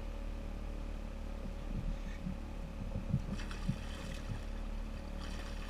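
Steady low wind-and-water rumble on the water, with a few dull knocks against the kayak. Brief splashy hiss about three and a half seconds in and again near the end as a hooked tarpon thrashes at the surface beside the kayak.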